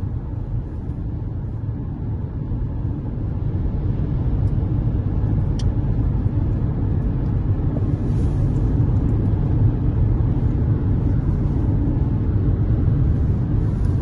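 Road noise inside a car driving at highway speed: a steady low rumble of tyres and engine that grows a little louder about four seconds in.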